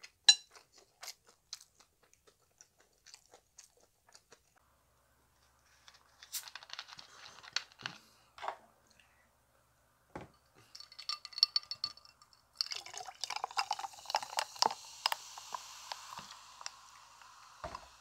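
Mouth sounds and light chewing, then handling of a plastic Coca-Cola bottle. From about two-thirds of the way in, cola is poured into a glass and fizzes, a steady hiss with small crackles.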